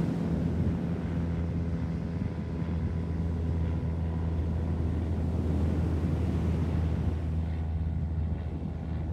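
A steady, low engine drone holding one pitch, over wind on the microphone.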